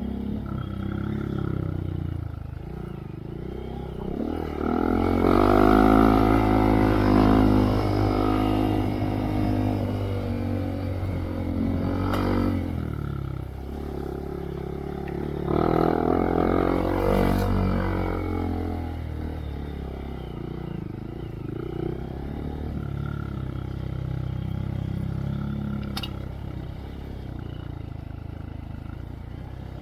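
Honda Monkey's 125 cc single-cylinder four-stroke engine through a Yoshimura RS3 slip-on exhaust with spark arrestor, running under way on the move. It revs up hard twice, about five seconds in and again about fifteen seconds in, and runs lower in between, with a sharp knock or two.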